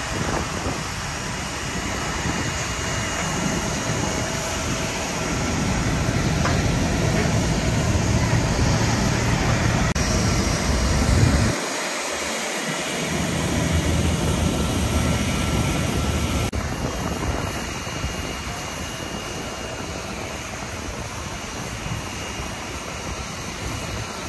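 Steady jet airliner noise on an airport ramp: a continuous rushing hum with a faint steady whine above it, mixed with wind rumbling on the microphone that drops out briefly about halfway through.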